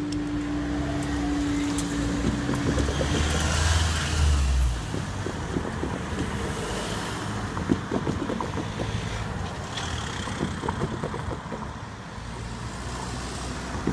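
Road traffic moving off over a railway level crossing once the barriers have lifted, with one vehicle passing close and loud about three to five seconds in. A steady hum stops about three seconds in, and light knocks and footsteps sound over the traffic.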